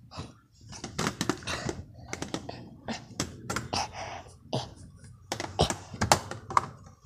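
Irregular taps and knocks with rustling, from things being handled right against the microphone.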